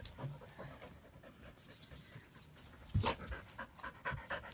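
Dog panting, with a single sharp knock about three seconds in.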